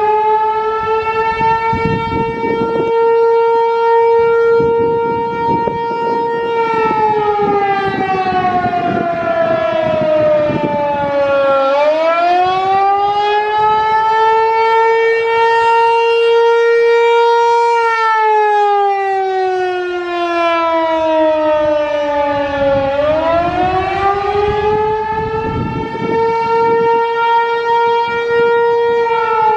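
American Signal T-128 electromechanical outdoor warning siren sounding a wail. The pitch holds high for several seconds, slides down, then winds back up and holds again, repeating about every eleven seconds, with the tone falling once more near the end.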